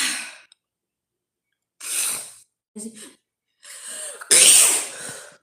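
A woman in a sneezing fit: a sneeze fading at the start, another sneeze about two seconds in, then a build-up breath and a loud sneeze near the end, the loudest of them.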